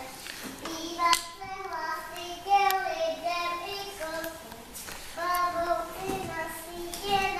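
Children singing a song in slow, held notes with no instrumental accompaniment, punctuated by a few sharp clicks.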